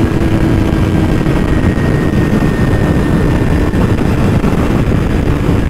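Yamaha R6 inline-four sportbike engine running at steady motorway cruising speed, its engine note sinking slightly, almost buried under heavy wind rush.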